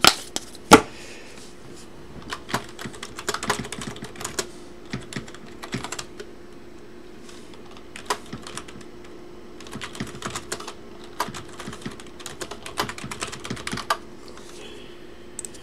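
Typing on a computer keyboard: short bursts of clicking keystrokes, with a sharp tap just under a second in and a faint steady hum underneath.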